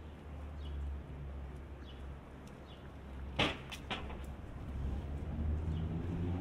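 City street sounds: a steady low traffic rumble with small birds chirping now and then, and a sharp clack followed by a couple of lighter clicks about halfway through.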